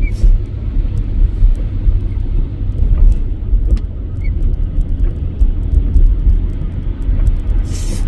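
Steady low rumble of a truck driving slowly through deep snow, heard from inside the cab, with a short hiss near the end.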